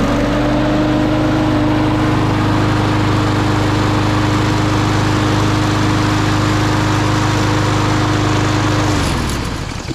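Kohler XT675 single-cylinder push-mower engine running steadily at full speed just after a cold start, its pitch settling up to speed in the first moment, then shut off about nine seconds in and winding down. It runs well after a new spark plug and air filter.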